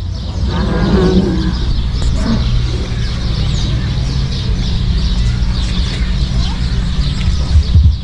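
Many small birds chirping in the trees, over a steady low hum, with a brief murmur of voices about a second in.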